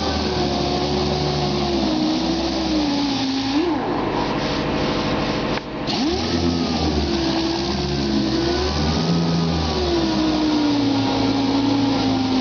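Astro Pneumatic 'mud hog' air-powered orbital sander running on body filler, its whine wavering in pitch as it is loaded against the panel. It cuts out briefly about five and a half seconds in, then spins back up.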